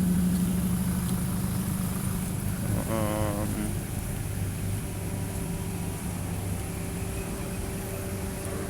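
Steady low mechanical hum and rumble, with a brief wavering tone about three seconds in.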